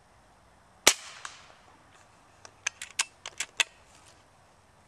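A Diana Stormrider .22 pre-charged pneumatic air rifle fires once, a sharp crack about a second in, with a fainter crack just after. About two seconds later comes a quick run of sharp clicks, as the rifle's side bolt is worked to chamber the next pellet.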